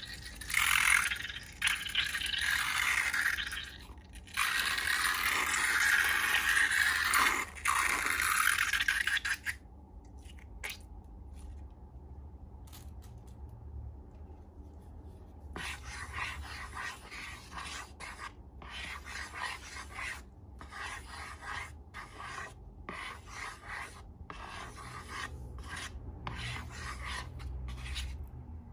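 Slime being worked by hand tools, scraping and rubbing: loud continuous scraping for about the first nine seconds, then after a quieter stretch a run of short rubbing strokes, several a second.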